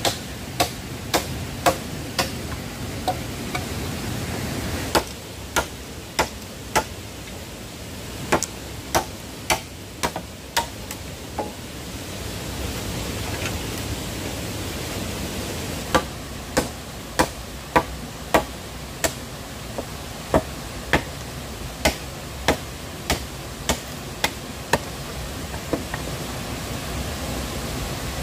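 Machete chopping into bamboo, sharp strokes at about two a second in runs with short pauses, over the steady rush of a stream.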